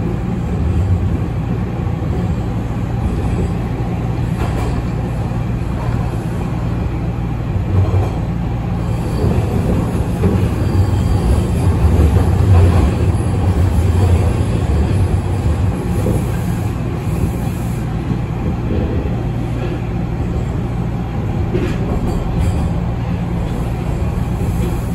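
Toronto Rocket subway train heard from inside the car while running through a tunnel: a steady, loud rumble of wheels on rail and running gear, swelling a little about halfway through.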